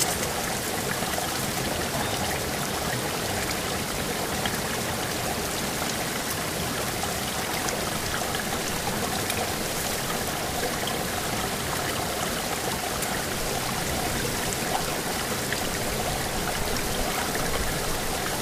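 Steady rush of a fast-flowing mountain river, with a few faint light clicks over it.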